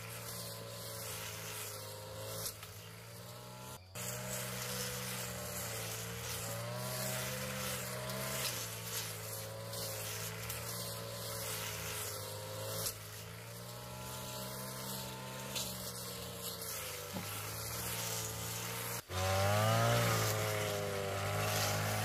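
Small two-stroke brush cutter engine running, its speed wavering up and down. Near the end it gets suddenly louder and revs up and down as it cuts grass.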